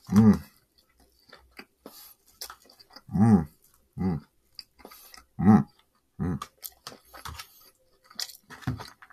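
Close-miked chewing and mouth sounds of someone eating takeout fried rice with a fork, with several short low hums between bites and small clicks from the fork and mouth.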